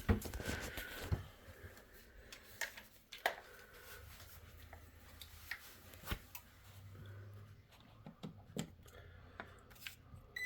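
Faint scattered clicks and rustles as multimeter test leads are handled and touched to the thermostat wire terminals, over a low steady hum. A short high beep sounds at the very end.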